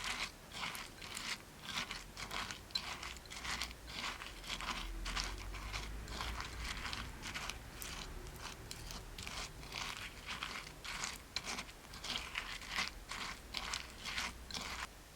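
Repeated crisp crunches, several a second, of dry floral foam being broken up by hand, stopping near the end.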